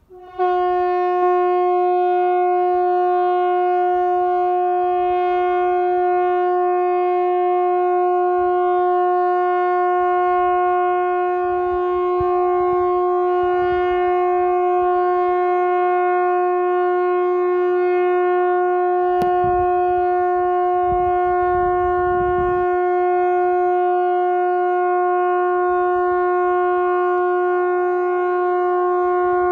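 Swedish 'Hesa Fredrik' outdoor warning siren sounding one long, steady, unbroken tone of about thirty seconds that comes on abruptly. It is the 'faran över' all-clear signal, the continuous tone that ends the quarterly siren test.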